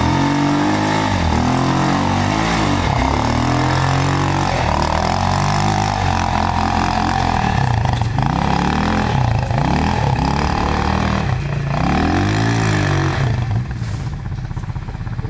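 Quad bike (ATV) engine revving up and down repeatedly as it is ridden through mud, the pitch rising and falling with the throttle. It grows quieter near the end as the quad pulls away.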